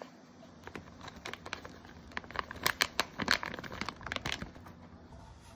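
Plastic pouch of shredded cheese crinkling as it is handled and shaken out over a cup of ramen: a run of crisp crackles, busiest through the middle.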